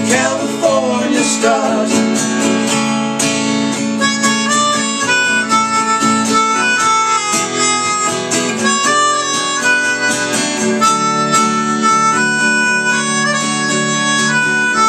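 Melodica blown through its flexible mouthpiece tube, playing a melody in long held notes over a strummed acoustic guitar. The melodica comes in about two seconds in, as a sung line ends.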